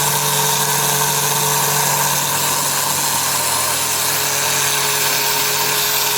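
Maharaja Whiteline Joy 550-watt mixer grinder running steadily on speed 2, its blades grinding whole black cardamom, black pepper and cumin to powder in a stainless steel jar.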